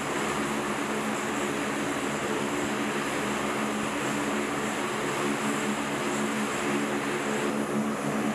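The four-engine turboprop powerplant of a U.S. Marine Corps KC-130J Hercules running steadily on the ramp. A constant propeller hum sits over a broad rushing noise.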